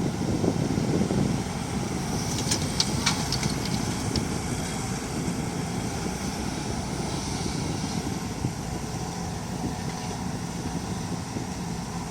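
Komatsu excavator's diesel engine running steadily, with a few sharp metallic clanks about two and a half to three and a half seconds in.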